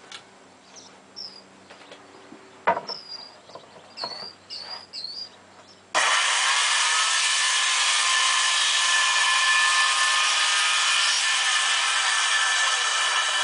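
Handheld circular saw starts suddenly about six seconds in and cuts through wooden framing at a steady, loud level for about seven seconds, winding down at the end. Before it there are light handling clicks and one sharp knock.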